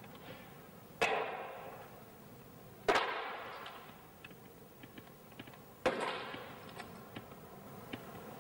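Three loud, sudden clanging hits two to three seconds apart, each ringing and fading over a second or two, with faint ticks between them.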